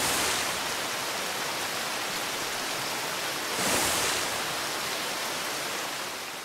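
Cartoon sound effect of a flood of water rushing. It is a steady rush that swells briefly about four seconds in, then fades away near the end as the water settles.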